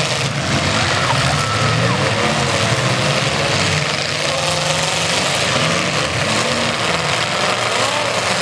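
Several demolition derby cars' engines running and revving at once, their pitches rising and falling over one another in a steady din.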